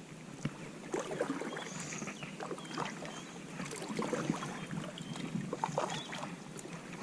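Canoe being paddled: irregular splashes and drips of the paddle in the water, with light knocks against the hull.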